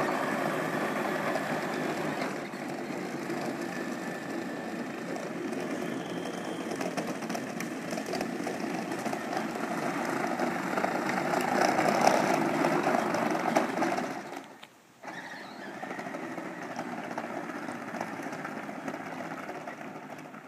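A small dune buggy's motor running steadily. It gets louder about twelve seconds in, cuts out briefly a few seconds later, then runs on more quietly.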